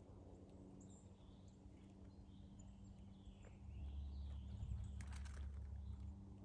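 Faint chirps and calls of small songbirds at a yard feeder, over a low rumble on the microphone from about four seconds in and a brief click near the end.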